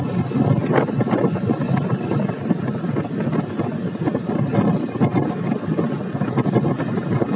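Motorcycle riding along a road: engine and road noise mixed with wind noise on the microphone, steady throughout with a few faint knocks.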